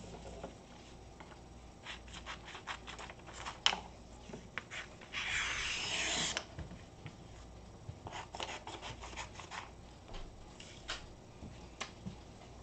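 Scattered small clicks and taps in two clusters, with a scraping rub lasting just over a second around the middle, over a low steady hum.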